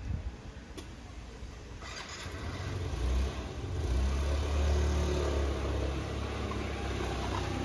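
A motor scooter's engine running close by on the street, its low rumble growing louder from about two seconds in and staying strong to the end.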